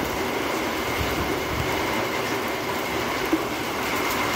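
Rain falling steadily, an even rushing hiss with no break.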